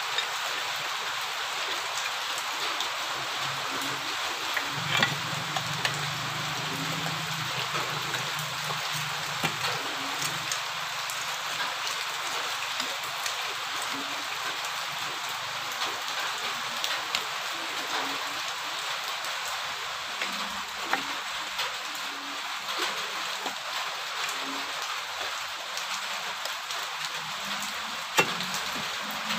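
Steady hiss of rain falling, with scattered light clicks and a sharp knock near the end.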